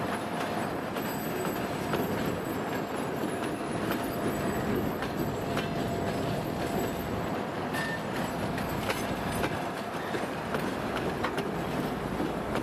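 M62-series diesel locomotives, with their two-stroke V12 diesel engines, running steadily as a short train of two locomotives and one passenger car rolls past close by. Occasional sharp wheel clicks come through in the second half.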